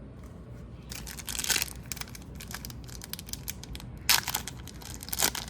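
Wrapper of a hockey card pack being torn open and crinkled, in rustling bursts about a second in and again near the end.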